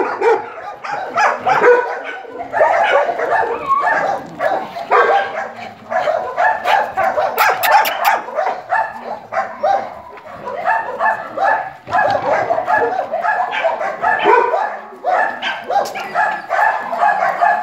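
Several dogs barking and yapping at once in a kennel yard, a continuous din of short, overlapping barks.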